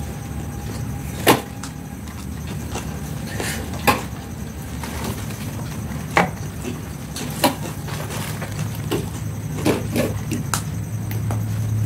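A person eating rice with the fingers: close-up chewing and mouth-smacking sounds, with a sharp click every second or two. A steady low hum runs underneath and grows louder near the end.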